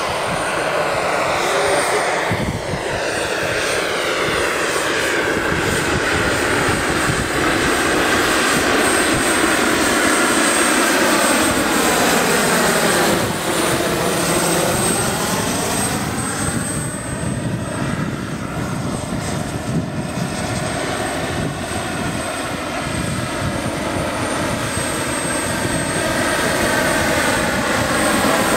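Pahl Taurus two-stage gas turbine and five-blade main rotor of a scale RC Mi-24 helicopter in flight, a steady high turbine whine over the rotor noise. About halfway through it passes closest and the sound takes on a phasing whoosh that sweeps down and back up.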